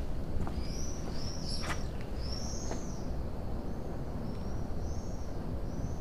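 A bird calling with short, high, arched chirps, clearer in the first three seconds and then repeated more faintly about every half second, over a steady low background rumble.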